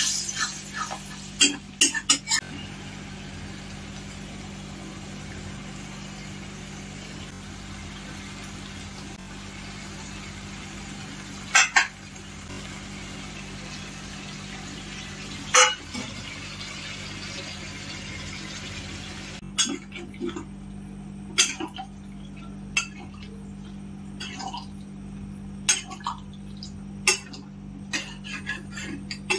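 Metal spatula stirring a curry in a metal kadai, knocking and clinking sharply against the pan now and then: a few clinks at the start, single ones midway, and more frequent ones in the last ten seconds. A steady low hum runs underneath.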